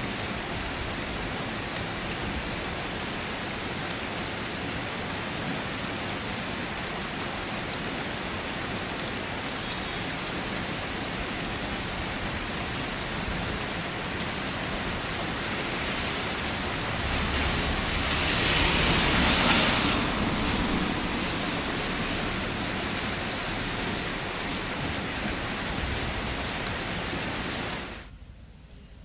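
Steady rain falling into standing water, drops splashing on the surface. It swells louder for a few seconds past the middle, then drops away sharply near the end.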